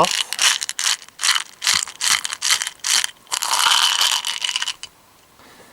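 Air rifle pellets rattling as they are tipped and shaken out of their container onto a cloth: a run of short rattles, then one longer rattle that stops near the five-second mark.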